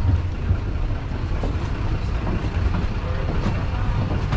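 Steady low rumble of a moving vehicle, with faint clicks and knocks scattered through it.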